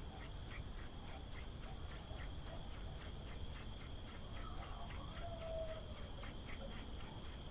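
A short wooden hand-drill spindle spun between the palms into a small fireboard, giving a faint rubbing, over steady insect chirping with regular ticks about four times a second. A short bird call sounds about five seconds in.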